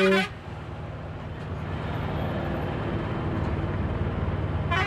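Auto-rickshaw engine running steadily under road and traffic noise, heard from inside the open rickshaw. A vehicle horn sounds briefly at the very start and another begins near the end.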